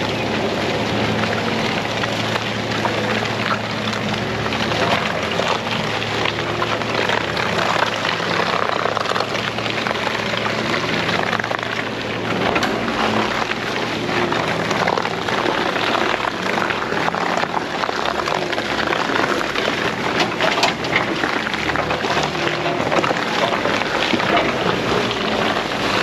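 A 4x4 driving along a rutted dirt trail: steady engine drone mixed with tyre and wind noise, with scattered knocks and rattles over the bumps.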